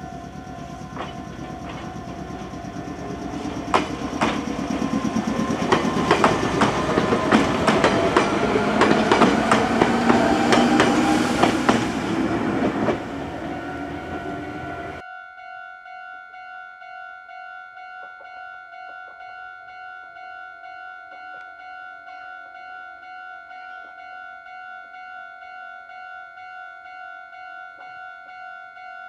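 Meitetsu 6000 series electric train running through a station: wheels clacking over rail joints and a rising motor whine as it picks up speed. After a sudden cut about halfway through, a railway crossing alarm rings in an even, repeating pattern, with faint train sounds in the distance.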